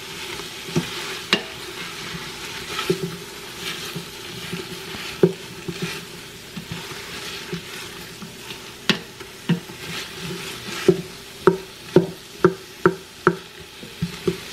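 Wooden spoon stirring onions, garlic, cherry tomatoes and zucchini as they sauté in a stainless steel Instant Pot insert: a steady sizzle with the spoon knocking against the pot. The knocks come quicker, about twice a second, in the last few seconds.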